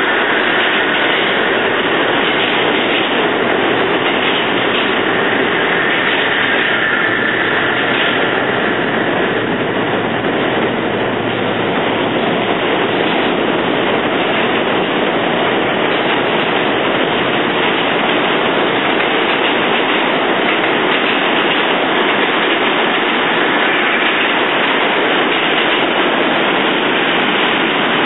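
Westinghouse-powered New York City subway train passing through a station: a loud, steady rumble and rattle of wheels on track, with a faint high tone that fades out about nine seconds in.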